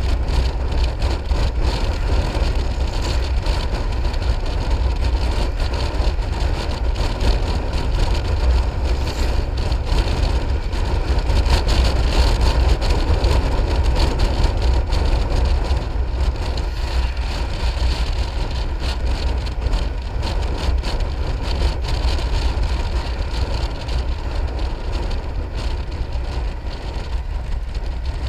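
Wind rushing over the microphone with road and tyre noise from a Piaggio MP3 500 scooter riding at road speed, a steady low rumble and hiss. It grows a little louder about twelve seconds in and eases slightly near the end.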